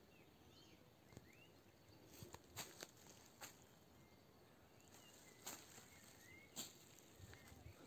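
Quiet footsteps on dry leaf litter and twigs, heard as a handful of sharp crackles, with faint bird chirps behind them.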